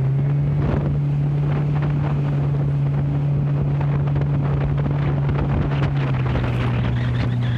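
Mercury outboard jet motor running steadily under way at about 20 mph, with wind buffeting the microphone and water rushing past the hull. The engine's pitch drops slightly near the end.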